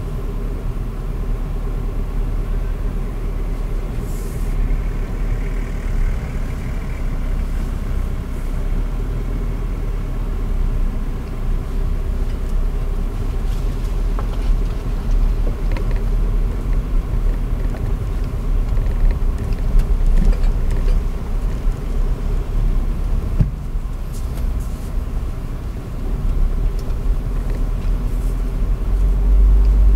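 Audi Q5 driving slowly over a dirt off-road track, heard from inside the cabin: a steady low engine and road rumble with occasional short knocks and rattles, growing louder near the end.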